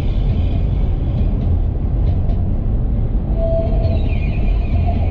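Steady low rumble of road and engine noise inside a moving car's cabin. Faint tones come in over it from about three and a half seconds in.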